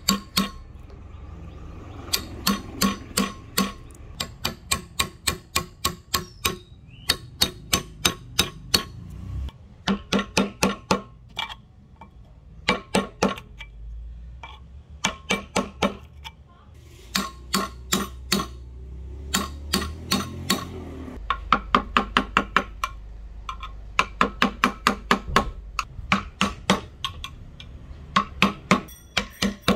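Hammer blows ringing on steel, struck in quick runs of several a second with short pauses between runs, as the old handle is knocked out of a double-bit axe head.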